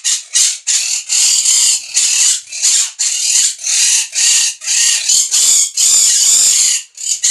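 A parrot screaming over and over, harsh loud squawks coming about two to three a second without a break; the bird is upset.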